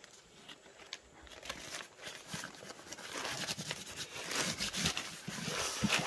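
Kite canopy fabric rustling and crinkling as hands rub and press a double-sided-tape fabric patch down onto it. Faint at first, growing louder over the second half as the rubbing gets firmer.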